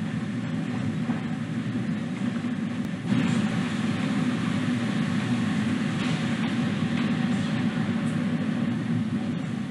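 Steady low rumbling noise with an even hiss above it, a little louder from about three seconds in.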